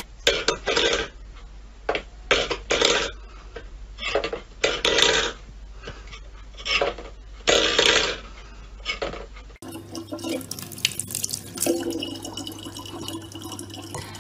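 A cat batting a metal bowl about on a wooden floor: about a dozen sharp clatters and rattles, some close together. About two thirds of the way in this gives way to a thin stream of water trickling from a tap into a plastic bottle.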